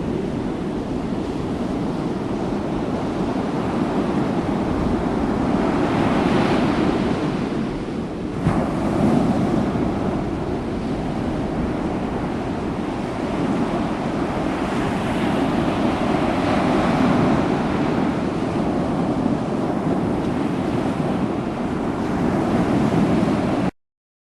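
Ocean surf breaking on a beach: a continuous wash of waves that swells and ebbs every few seconds, with wind rumbling on the microphone. The sound cuts off abruptly near the end.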